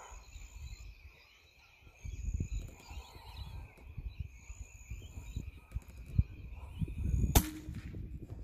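A single shot from a CZ 452 .22 LR rimfire rifle, one sharp crack near the end with a brief ring after it, taken at a rabbit. Before it there is only a low, uneven rumble.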